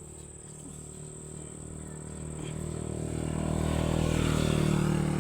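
A motor vehicle engine, likely a passing motorcycle, with a steady hum that grows louder over the second half, peaking near the end. A steady high-pitched insect-like whine runs underneath.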